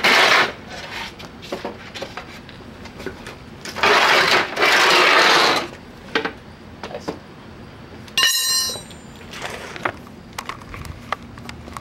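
Pry bars working sheet-metal parts off a window air conditioner: bursts of scraping and rattling metal, the longest lasting about two seconds around four seconds in, then a single ringing metal clang a little after eight seconds.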